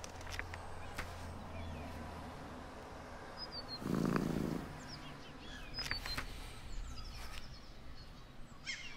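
A cat gives one short, low, rough purr lasting under a second, about four seconds in. Faint bird chirps come and go around it.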